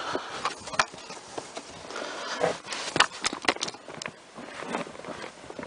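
Footsteps with scattered clicks and scuffs of handling, the loudest about three seconds in.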